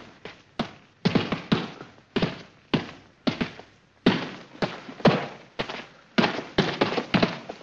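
Boxing punches from two boxers sparring in a ring: sharp glove-on-body thuds landing in quick irregular flurries, about three a second and often in pairs, with short pauses between combinations.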